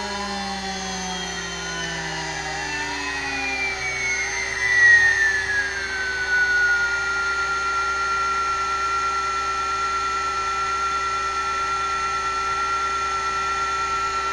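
Huanyang water-cooled CNC spindle, driven by a VFD, slowing down. Its electric whine falls in pitch over the first six seconds or so, then holds steady as the spindle settles at 5,000 RPM, over a steady lower hum.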